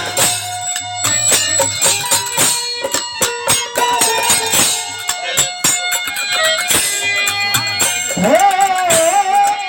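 Instrumental passage of a Bhojpuri nirgun folk song: rapid jingling percussion strikes over steady held melodic notes, with a sliding melodic line rising in pitch about eight seconds in.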